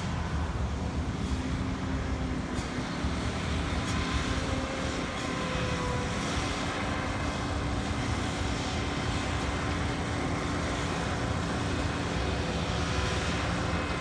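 Combine harvester running steadily while harvesting soybeans: a continuous engine drone with a few steady held tones over it.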